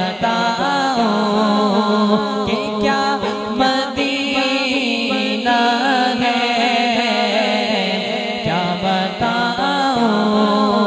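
Male voice singing a naat in a slow, ornamented style, the pitch wavering and gliding on long held notes, over a steady low vocal drone.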